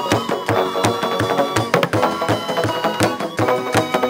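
Solomon Islands bamboo music: deep, pitched thumps of struck bamboo tubes in a quick, steady beat, with higher melodic notes over them.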